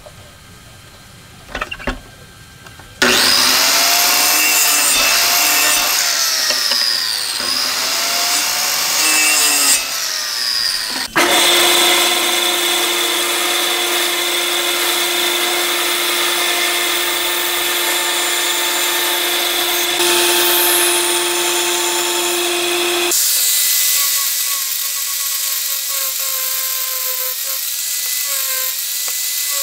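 Power-tool work on hardwood in three stretches. From about three seconds in, a miter saw cuts a small piece, its pitch dipping and recovering under load. After an abrupt change about eleven seconds in, a bandsaw runs steadily through the wood; from about twenty-three seconds in, an angle grinder fitted with a sanding disc runs with a steady whine.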